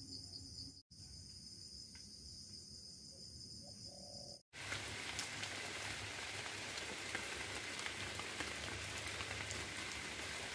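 A steady, high-pitched chorus of insects, broken by a short dropout about a second in. At about four and a half seconds it switches abruptly to a louder, even hiss with a fine patter, like rain on leaves.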